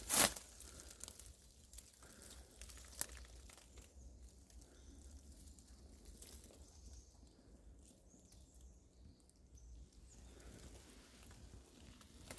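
A brief crackling rustle just after the start, a single sharp click about three seconds in, then faint scattered rustles over a steady low rumble.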